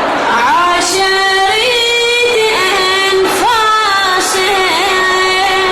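A solo voice chanting a Husseini elegy: long, high held notes with melismatic ornaments, breaking briefly for a fresh note about three seconds in.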